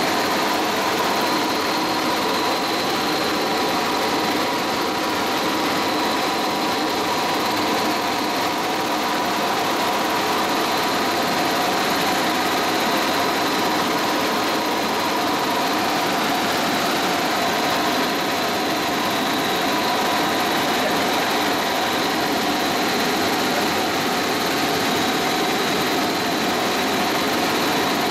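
Helicopter in flight heard from inside the cabin: the engine and rotor make a constant, dense drone, with a steady high whine over it.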